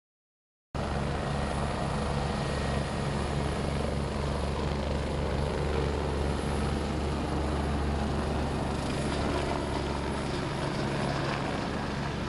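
Boston MedFlight medical helicopter flying low and close, its rotor making a loud, steady sound that starts abruptly about a second in.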